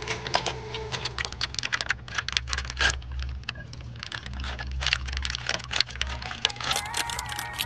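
Crinkling and crackling of a small plastic food packet being handled, a dense irregular run of sharp crackles.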